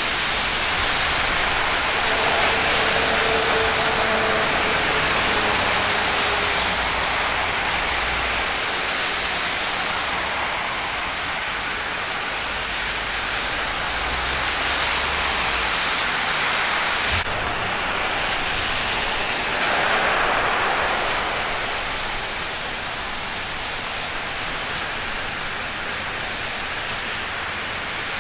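Traffic passing on a flooded, rain-soaked road: tyres hissing through standing water and throwing spray. The noise is steady, swelling as each vehicle goes by.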